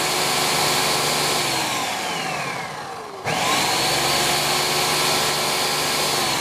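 Countertop blender puréeing leek and potato soup with cream. The motor runs at full speed, winds down with a falling whine from about a second and a half in, then starts again abruptly about three seconds in and runs on, beginning to wind down again at the very end.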